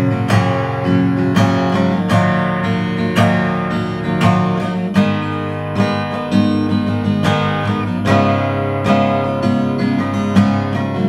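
Steel-string acoustic guitar strummed in chords, about two strokes a second, each chord ringing on into the next. The strings have not yet been cleaned, and the player holds that strings in this state sound dull.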